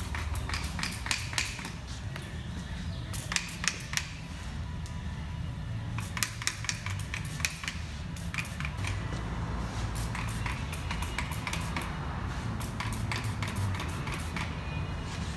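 Scattered light clicks and taps as hands handle the rear air-suspension lines and components under a car, over a steady low hum.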